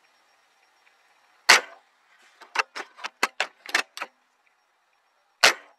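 Airsoft gun clicks. One loud sharp shot, then a quick run of about nine lighter clicks, then another loud sharp shot near the end.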